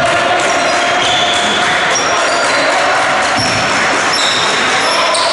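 Live basketball play in an echoing sports hall: the ball bouncing on the court and short, high-pitched squeaks of players' shoes over a steady hall din.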